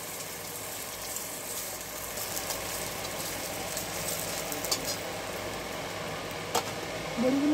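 Rohu fish frying in oil in a kadai: a steady, low sizzle over a constant hum, with a couple of sharp clicks of the metal spatula against the pan.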